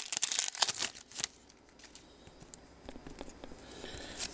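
Foil trading-card pack wrapper crinkling as it is handled and opened. This lasts for about the first second, then only faint rustles.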